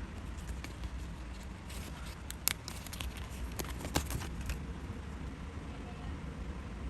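Paper and craft tools being handled: a scatter of small crackles and clicks, two of them sharper, over a low steady hum.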